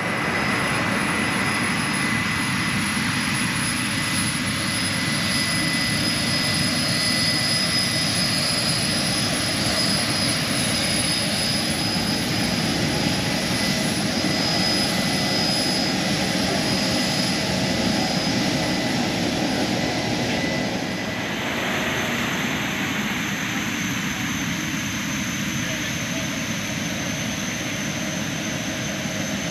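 Steady jet aircraft noise: a continuous rush with a thin high whine. It eases slightly and changes character about two-thirds of the way through.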